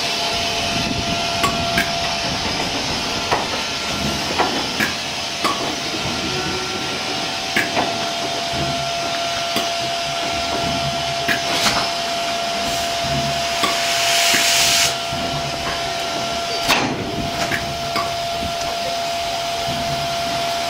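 BR Standard Class 8 Pacific No. 71000 Duke of Gloucester standing in steam, hissing steadily with a steady high note running through the hiss. Scattered sharp clicks and knocks come over the top, and about two-thirds of the way through a louder burst of steam lasts about a second.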